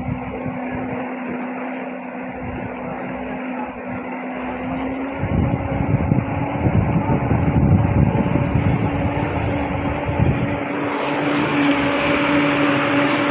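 Honda 250 hp four-stroke outboard motor running at low speed with a steady hum that rises slightly in pitch about five seconds in. Rushing water from the propeller wash joins near the end.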